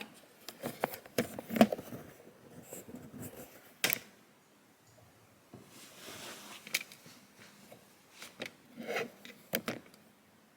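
Handling noises: scattered clicks, knocks and rubbing, with sharper knocks about a second and a half in, near four seconds and near the end, as something is adjusted by hand.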